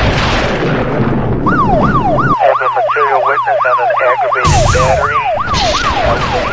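Electronic emergency-vehicle siren in a fast yelp, sweeping up and down about three times a second, starting about a second and a half in. It is layered with a loud whooshing rush at the start and another about four and a half seconds in.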